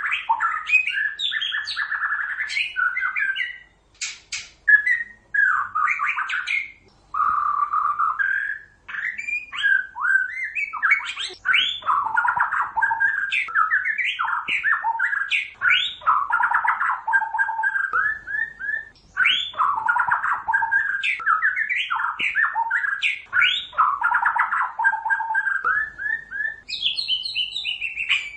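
White-rumped shama singing a long, varied song of rapid whistled phrases, slurred notes and trills, broken by a few short pauses, with a higher-pitched phrase near the end.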